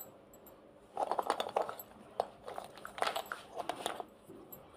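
Small plastic makeup items and cases being handled and rummaged through in a makeup kit. Clusters of light clicks and rattles start about a second in and stop near the end.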